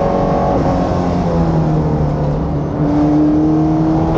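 A race car's 5.0-litre stroker V8, a dual-overhead-cam engine punched out to 5.0 litres, running hard under load, heard from inside the cockpit. Its note dips briefly about half a second in, then gets louder and climbs slowly in pitch about three seconds in.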